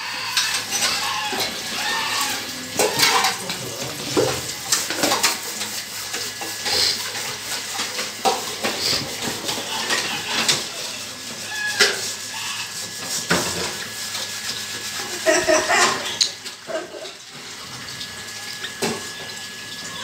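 Irregular clinks, knocks and clatter of handled metal and dishware over a steady hiss.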